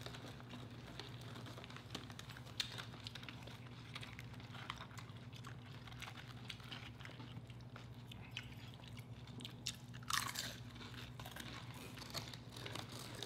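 Close-miked chewing and crunching of tortilla chips from loaded nachos, with irregular small crunches and bites throughout over a steady low hum. A brief falling-pitched sound comes about ten seconds in.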